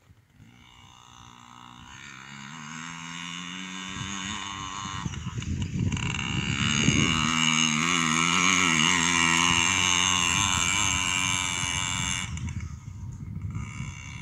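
Yamaha PW50 mini dirt bike's small two-stroke engine, with the throttle rising and falling as it rides the track. It grows louder as it approaches, is loudest in the middle as it passes close by, and drops off sharply near the end as it pulls away.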